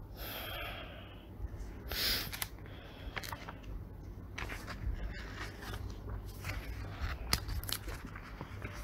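Low steady hum of a home recording, with scattered faint clicks and small scraping rustles, and a short hiss of noise about two seconds in.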